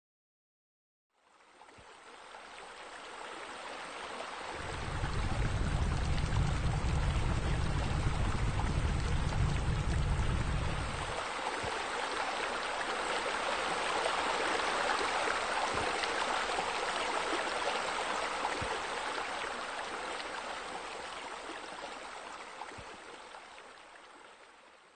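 Steady rush of running, splashing water, like pool bubbler jets, fading in at the start and out near the end. A deep low rumble sits under it from about four to eleven seconds in.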